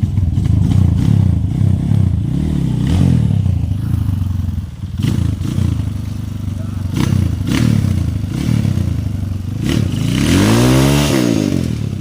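Trail dirt bike engine revving, the revs rising and falling again and again, with a longer, higher rev about ten seconds in.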